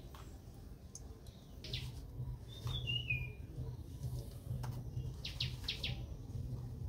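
A bird calling: a short whistled note sliding down in pitch about three seconds in, and a few short high chirps, over a low steady hum.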